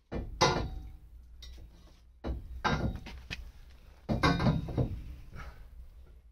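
Bent steel roll-cage tube knocking and clanking against the car's bare body shell as it is worked into position for a trial fit: about six sharp metallic knocks, each with a short ring, with a quick cluster of them about four seconds in.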